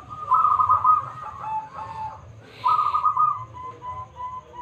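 Zebra dove (perkutut) singing: a burst of rapid trilled coos shortly after the start and another just past halfway, then a run of short, evenly spaced coo notes near the end.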